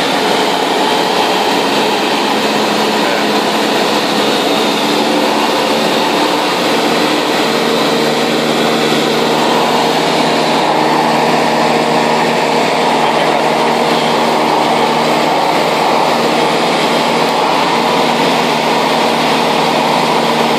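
Engine and propeller of a high-wing light aircraft running steadily in flight, heard from inside the cabin: a constant hum over a broad rushing noise, with no change in pitch or level.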